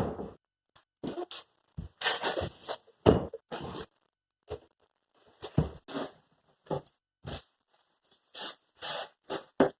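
About a dozen short, irregular scrapes and knocks of hands-on cabinet work, each a fraction of a second, with silent gaps between.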